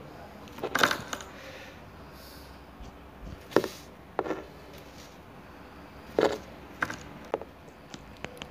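Handling noise from a phone being held and tapped: a string of short clicks and knocks at irregular spacing over a faint room hiss.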